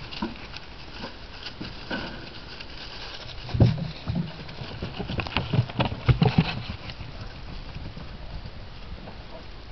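Dogs running: a flurry of quick, soft footfall thumps, bunched in the middle few seconds.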